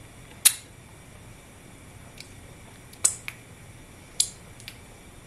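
A spoon clicking against a ceramic bowl of pancake batter: a handful of short, sharp clicks, the loudest about half a second in and a pair about three seconds in.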